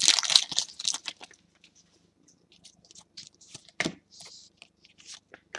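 Foil trading-card pack wrapper crinkling as it is pulled off the cards, loudest in the first second. Then faint rustles and light clicks as the cards are handled.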